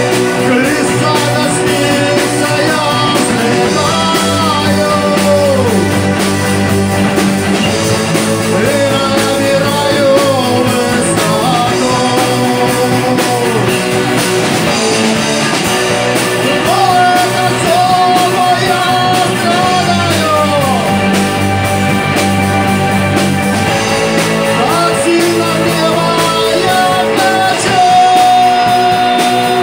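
Live rock band playing: a man sings at the microphone over electric guitar, keyboard and drum kit.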